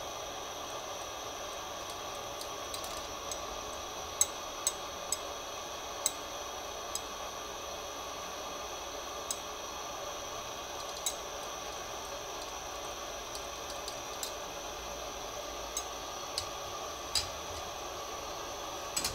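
Steady hiss of an oxy-fuel bench torch flame, broken by about a dozen short, sharp ticks scattered through it as the hot glass is worked in the flame.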